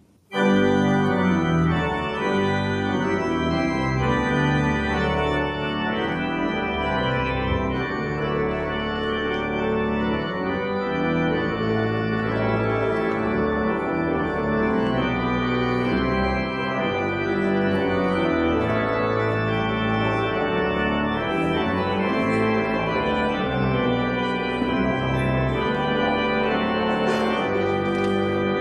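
Church organ starting loudly about half a second in and playing full sustained chords: the closing voluntary after the benediction.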